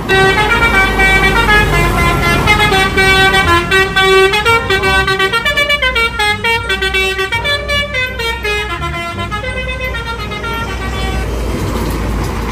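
Bus telolet horn, a Basuri multi-trumpet air horn, playing a stepping melody of several tones at once, loud, over the bus engine's low rumble.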